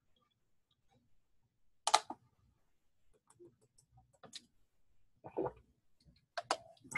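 A few short clicks and crinkles of a thin plastic water bottle and soft swallowing sounds as a man drinks to wash down a large pill; the loudest click comes about two seconds in.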